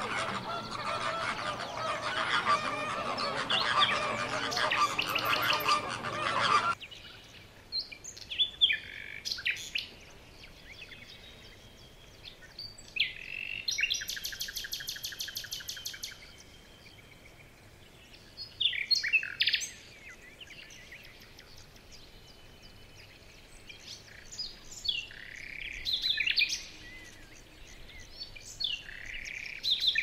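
A flock of flamingos calling in a dense, overlapping chorus of honks that stops abruptly about seven seconds in. After that, scattered higher bird calls: short chirping phrases and a fast trill.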